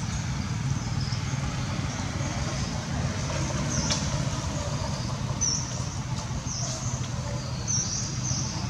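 Steady low motor hum with short, high bird chirps scattered through it, several in quick succession near the end.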